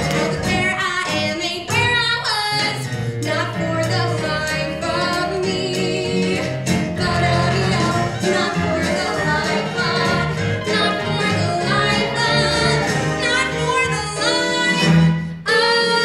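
A musical-theatre song: a singer with vibrato over a band, full and continuous, with a short dip near the end.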